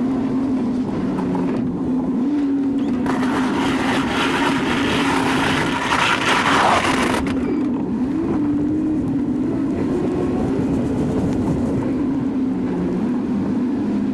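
Chevy 2500 pickup's engine running under load while it pushes snow with a V-plow, its pitch rising and falling slightly. About three seconds in, a louder rushing, scraping noise builds for around four seconds and then stops suddenly.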